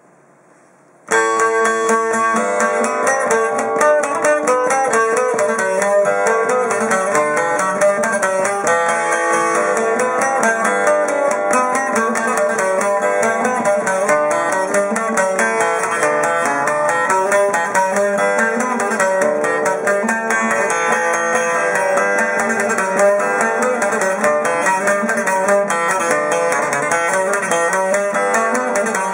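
Cretan laouto built by Panagiotis Boutsakis, picked rapidly with a long plectrum: a continuous run of quick notes and double-string courses, starting about a second in.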